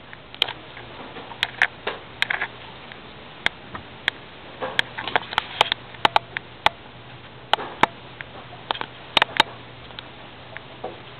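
Irregular sharp clicks and taps, some bunched close together, over a steady low hum.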